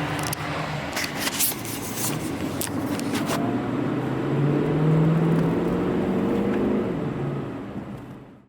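Car engine running, with a few light clicks at first. The engine note rises and grows louder through the middle, then the sound fades away.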